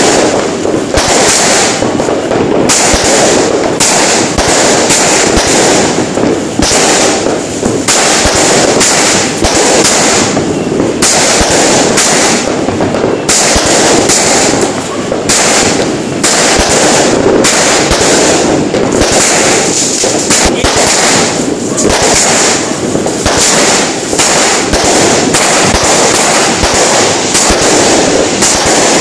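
Fireworks going off in a loud continuous barrage: rapid bangs and crackling stars following one another without a pause, with a constant hiss and crackle.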